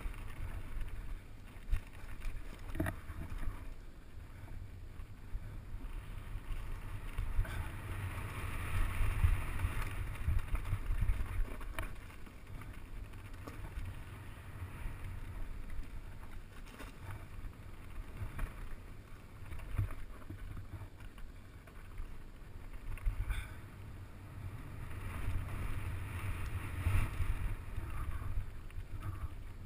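Mountain bike descending a dirt trail at speed: wind buffeting the camera's microphone over the tyres running on dirt, with scattered knocks and rattles from the bike over bumps. It grows louder around a third of the way in and again near the end.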